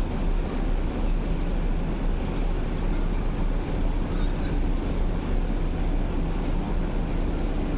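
Steady low rumble and hiss of railway platform ambience, with no distinct events.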